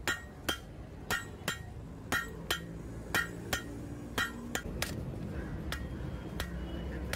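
Hammer blows on red-hot leaf-spring steel lying on an anvil, forging a billhook blade. A steady run of sharp, briefly ringing strikes, roughly two a second and often in quick pairs.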